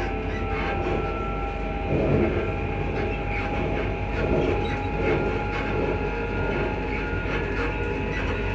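Class 334 electric multiple unit heard from inside the carriage while running: a steady whine from the traction motors over the rumble and clatter of the wheels on the track.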